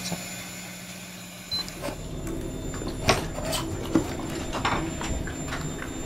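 Several knocks and clunks from a yacht's cockpit locker lid and gear being handled, over a low steady rumble.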